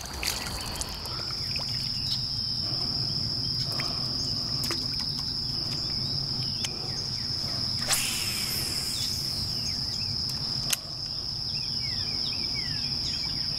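Steady, high-pitched drone of insects, crickets by the sound of it, over a low outdoor hiss. A splash of water right at the start, and a couple of sharp clicks about eight and eleven seconds in.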